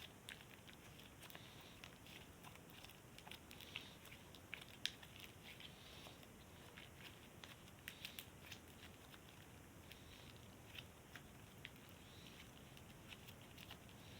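Slime with small bits mixed in being squished and kneaded by hand: faint, irregular crackling and sticky clicking pops, with a few louder pops about five seconds in and again around eight seconds.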